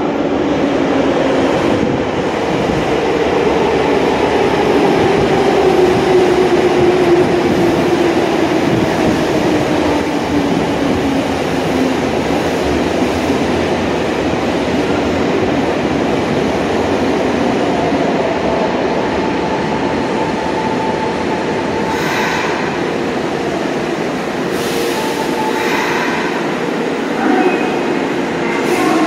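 Tsurumai Line subway train slowing down, the whine of its traction motors gliding steadily down in pitch under a constant rumble from the running gear, then levelling off. A few short, sharp sounds come near the end.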